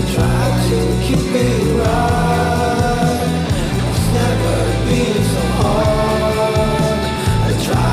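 Song with a sung or lead melody line gliding between long held notes over a steady bass.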